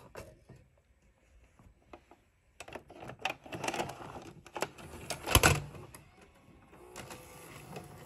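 Mechanical clicking and clattering, sparse at first and busier after a couple of seconds, with one loud sharp clunk about five seconds in, followed by a fainter steady whir.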